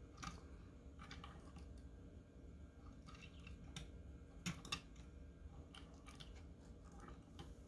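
Faint, scattered clicks and taps of small die-cast toy cars being set down and shifted on a display stand, the most distinct a quick pair of clicks about four and a half seconds in.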